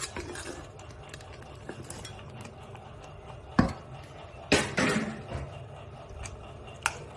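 A steel bowl and spoon clinking against a kadai as paneer cubes are tipped into thick curry gravy: four separate sharp clinks, the first about three and a half seconds in, two close together around the middle, and one more near the end.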